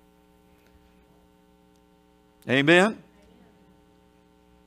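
Faint steady electrical hum made of several fixed tones, with a single spoken 'Amen' about halfway through.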